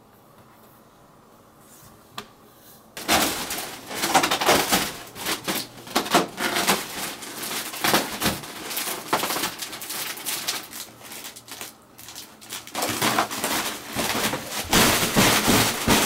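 Quiet room tone for about three seconds. Then a large foil (Mylar) balloon crinkles and rustles loudly, in dense crackly bursts, as a toddler pats and pushes it, with a short lull about twelve seconds in.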